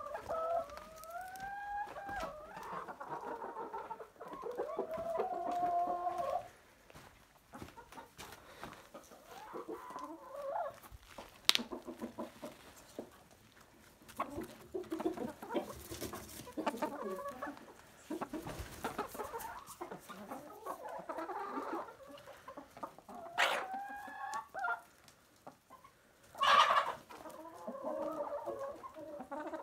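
A backyard flock of hens and roosters clucking and calling on and off, with short pitched calls that rise, fall or hold. In the middle, hens peck at feed held in a hand, a run of quick light taps, and there is one sharp click about a third of the way in.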